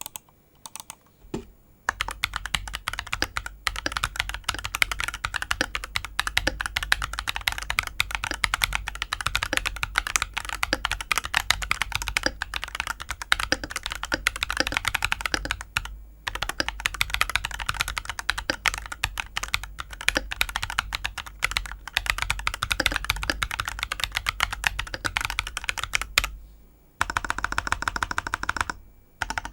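Typing sound test on a GamaKay CK68 mechanical keyboard fitted with Ajazz Diced Fruit Banana tactile switches and PBT keycaps: fast, continuous keystroke clacking starting about two seconds in, with a brief pause midway, stopping near the end.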